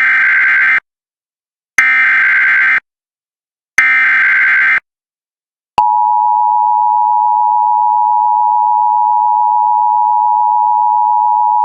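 Emergency Alert System broadcast: the SAME digital header sent as three roughly one-second bursts of warbling data tones, about two seconds apart. About six seconds in, the steady two-tone EAS attention signal (853 and 960 Hz) starts and holds. Together they open an EAS alert, here a National Weather Service tornado warning.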